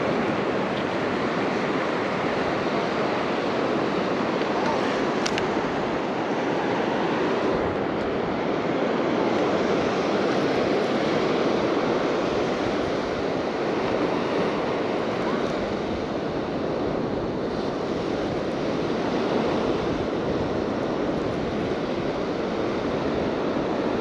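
Steady rush of ocean surf breaking on a sandy beach, an even wash with no pauses. A single sharp click comes about five seconds in.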